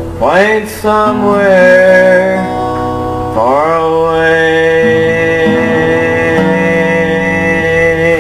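A man singing with acoustic guitar accompaniment. He swoops up into a phrase near the start and holds a long, steady note from about three and a half seconds in.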